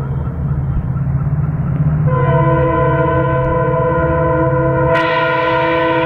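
EMD WDP-4B diesel locomotive approaching at speed, its engine rumbling under a long multi-tone horn blast. The horn is weaker for the first couple of seconds, then sounds strongly from about two seconds in. Its pitch sags slightly and the sound brightens as the locomotive draws level near the end.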